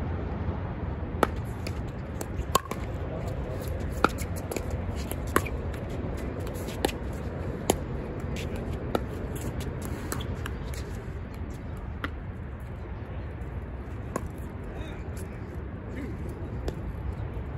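Pickleball paddles striking a plastic ball in a rally: sharp pops about every second and a half, then sparser, fainter pops over the last half. Steady wind rumble underneath.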